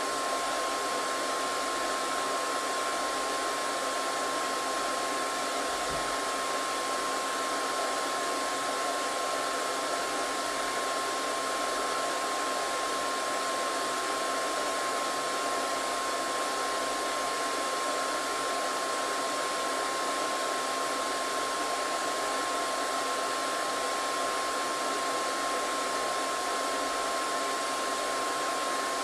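Hair dryer running steadily: an even rush of blown air with a steady high whine from the motor.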